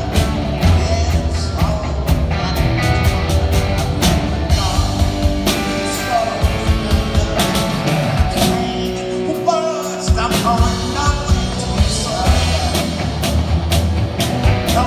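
Live rock band playing: electric guitar, bass guitar and drum kit with a steady beat, and a voice singing over it. The bass and drums drop out for a moment about ten seconds in, then the band comes back in. Recorded through a phone's microphone.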